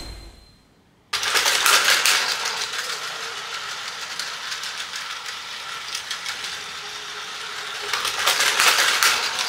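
Battery-powered Plarail toy train running on plastic track: a small electric motor buzzing under a dense rattle of plastic wheels and cars. It starts suddenly about a second in and gets louder near the end as the train runs into the terminal.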